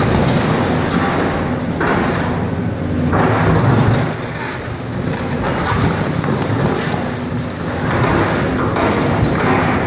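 Hydraulic excavator's engine running steadily under load while its bucket crushes a concrete dock float, the concrete and foam core cracking and crumbling in several loud bursts of crunching rubble.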